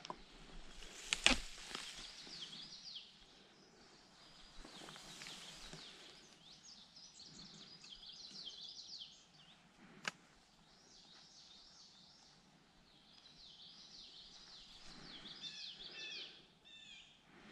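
A songbird singing: repeated quick phrases of high chirps and downward slurred notes, over a faint outdoor hiss. A sharp click about a second in and another about ten seconds in.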